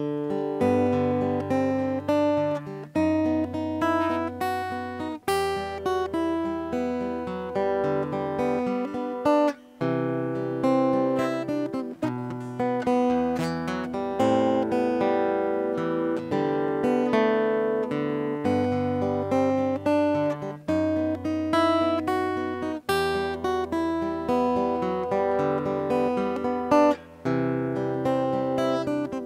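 Martin OMC-28E acoustic guitar played fingerstyle: a thumbed bass note under a quick sixteenth-note arpeggio, moving through chord changes (G, B7/F#, Em, G/D, C, Am7). The playing dips briefly about nine and a half seconds in and again near the end.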